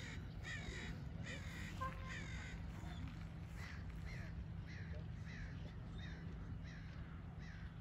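Crow cawing over and over, a string of about a dozen short falling caws, quicker at first and then more spaced out.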